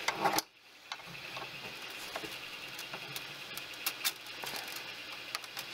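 Anet A8 3D printer's fans humming steadily while the print is paused for a filament change, with scattered light clicks and ticks as the filament is handled. The sound drops out briefly about half a second in.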